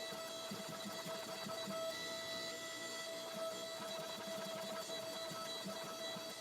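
Power hammer running, drawing out stock on combo dies: a fast, even beat of about five blows a second under a steady mechanical whine.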